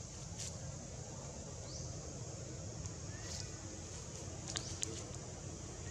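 Outdoor tree-canopy ambience: a steady high insect drone over a low rumble, with a few short rising bird chirps and a couple of faint ticks.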